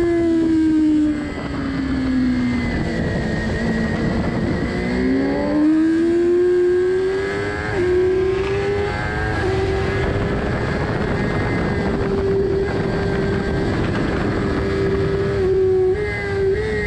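Sport motorcycle engine heard from onboard at speed: the revs drop through a corner, then climb hard with an upshift about eight seconds in and hold steady at high speed. Heavy wind rush over the microphone runs underneath.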